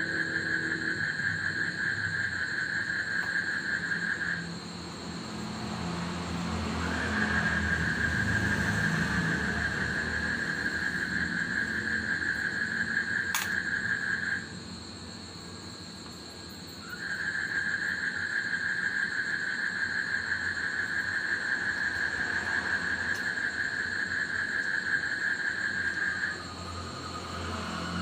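Frogs at night giving a steady, high trill in three long bouts of several seconds each, with short gaps between, over a constant thinner high whine. A vehicle passes faintly a few seconds in, and there is one sharp click near the middle.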